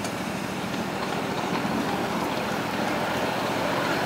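Ride-on miniature train rolling slowly along its track, a steady running rumble from the locomotive and wheels that grows slightly louder.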